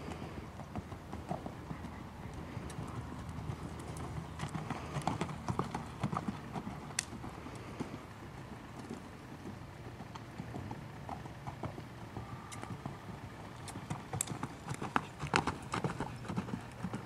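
Hoofbeats of a buckskin gelding being ridden at a lope on a dirt arena, a continuous run of short dull knocks.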